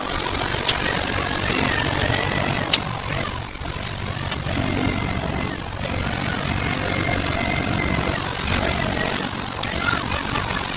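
Tractor-type forklift engine running steadily as the forklift moves and sets down a load. Three short sharp knocks come in the first half.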